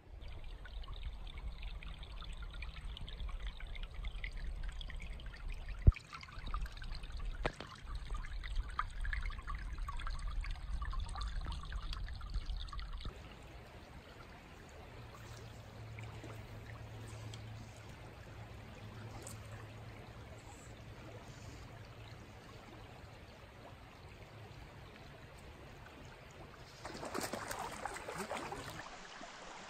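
Creek water flowing and rippling steadily, with a low rumble and a sharp knock about six seconds in during the first half. Near the end a hooked trout splashes at the surface.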